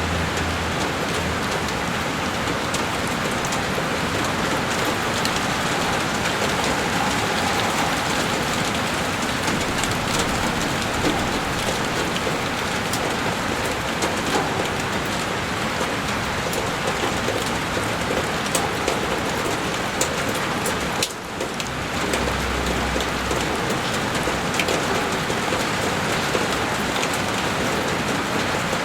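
Heavy rain falling steadily on a window pane: a dense, even hiss with scattered sharp drop ticks. The level dips briefly about two-thirds of the way through.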